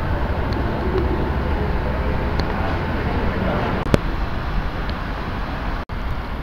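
Steady low rumble of a train running, heard from inside the carriage, with one sharp click about four seconds in and an instant where the sound cuts out near the end.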